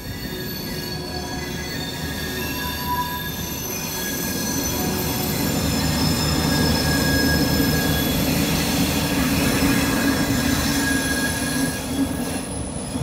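Steel wheels of a vintage passenger train hauled by the NOHAB diesel locomotive MY 1135 squealing against the rails as it moves slowly through the yard, several high-pitched tones coming and going at once. Under the squeal a low rumble of the train builds, is strongest in the middle and eases near the end.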